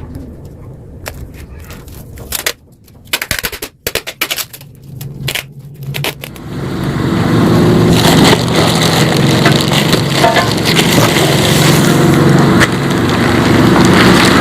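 Yamaha RX-King two-stroke single-cylinder motorcycle running through an exhaust gutted for a crisp, growling tone. For the first several seconds it gives irregular cracks and pops with short gaps, then about six seconds in it settles into a loud, steady run.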